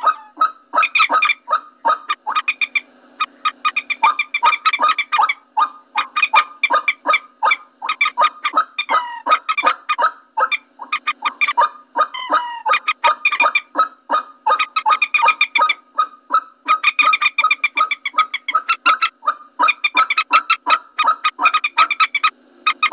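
Common moorhen calls played as a bird-lure recording: a long run of short, rapid clucking notes, about four a second, with a few short gliding calls mixed in around the middle.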